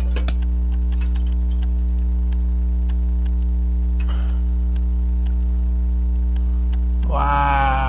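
Loud, steady mains hum picked up by the recording: ground hum from a salvaged microphone on an AC-powered camcorder that is not being held to ground it. A few small metallic clicks right at the start, and a brief voiced grunt near the end.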